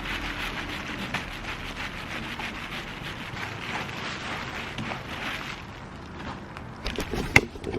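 Microfiber cloth rubbing polish into a plastic car window visor: a steady scrubbing rustle. A few sharp taps near the end.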